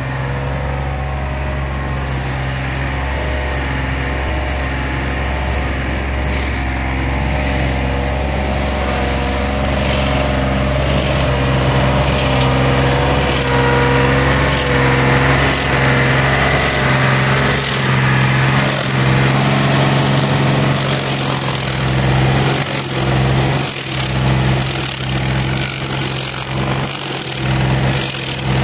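Predator stump grinder's engine running steadily at first. From a little past halfway its cutter wheel grinds into a tree stump, and the sound rises and falls unevenly as the engine takes the load of each pass.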